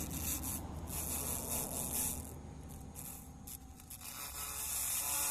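Handheld laser cleaner stripping the surface of aluminium before welding: a buzzing hiss, fainter for about a second in the middle.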